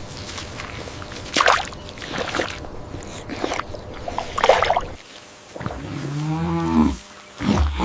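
Rustling and a few short scuffling noises, then a cow mooing once in a long call starting about five and a half seconds in, with a shorter low sound just after it.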